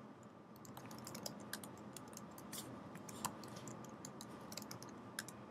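Faint, irregular keystrokes on a computer keyboard, typing in a login name and password, over a low steady hiss.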